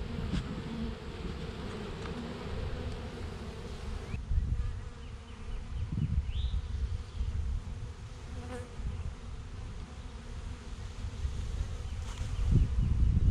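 A swarm of honey bees buzzing steadily in the air around an open hive, with low rumbles swelling about halfway through and again near the end.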